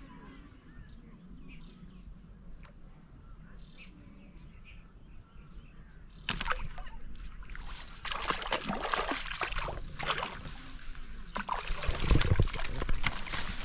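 A faint steady insect drone, then about six seconds in, loud repeated splashing as a hooked fish thrashes at the pond's surface on the line. A heavy low thump comes near the end.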